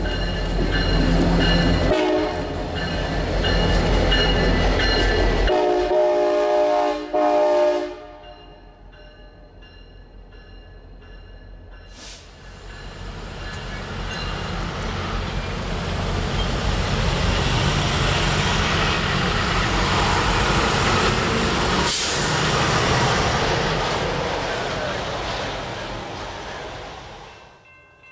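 CSX F40PH diesel locomotive running close by with a deep engine rumble, its horn sounding a chord for about two seconds near the end of the first third. Then a grade-crossing warning bell rings and a train approaches and passes at speed, the rumble of engine and wheels building, then fading away.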